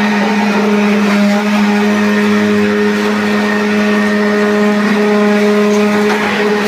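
Concrete-pouring machinery running with a steady, unchanging hum while fresh concrete is compacted on a roof slab.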